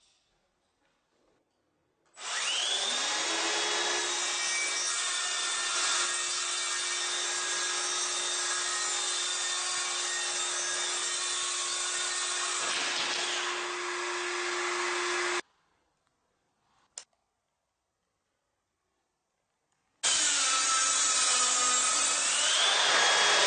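Makita 18V brushless cordless circular saw winding up with a short rising whine, then cutting through wood with a steady high whine for about thirteen seconds before stopping suddenly. A brief click follows. Near the end a second cordless circular saw cut starts abruptly.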